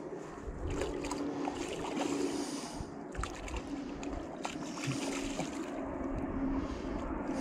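Water sloshing and splashing as a hooked trout thrashes at the surface close by, with wind buffeting the microphone.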